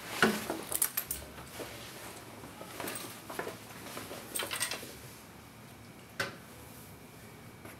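Fabric rustling and soft handling knocks as a wool overcoat is taken in hand and hung on a coat stand, with one sharp knock about six seconds in.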